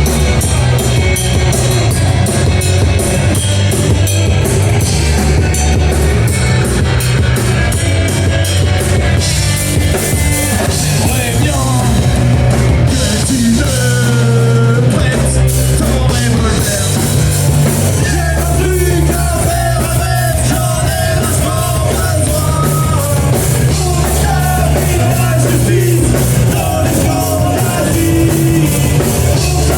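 A rock band playing live at full volume, driven by a drum kit and a heavy bass line. The first part is instrumental; a voice comes in singing from about halfway.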